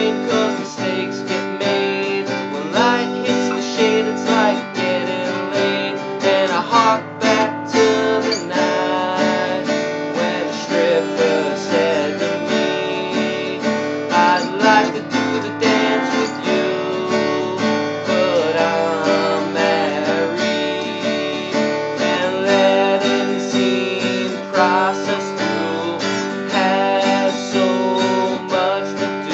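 Strummed acoustic guitar music.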